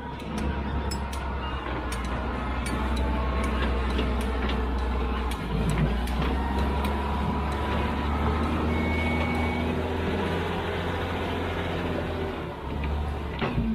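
Diesel engine of heavy construction machinery running steadily under load, with occasional faint clicks and clanks over the drone.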